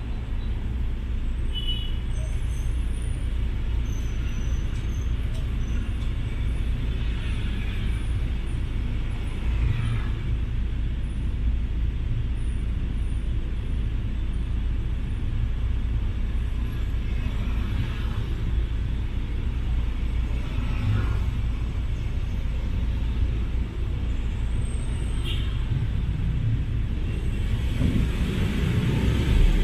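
Idling traffic at a stop, heard from inside a car: a steady low engine rumble with motor scooters idling around it and a few swelling past. The rumble grows louder near the end.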